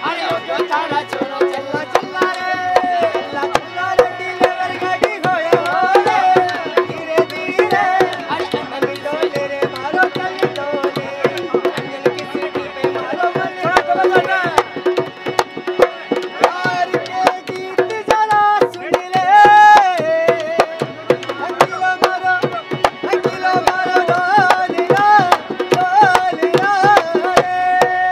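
Dholak hand drum beaten in a quick, busy rhythm, accompanying a man singing a wavering folk melody over a steady held drone.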